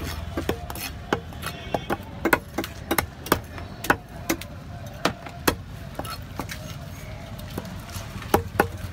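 A large curved fish knife chopping small trevally on a wooden chopping block: sharp blade-on-wood chops at an uneven pace of one or two a second, with a short lull before two quick chops near the end.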